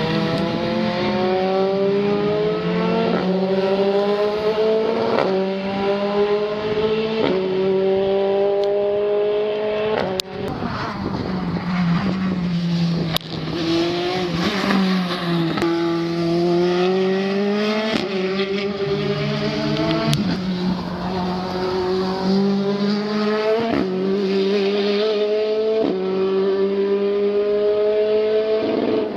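Formula 3 race car engines at high revs accelerating through the gears, the pitch climbing steadily and dropping sharply at each upshift about every two seconds, with falling sweeps in pitch around the middle.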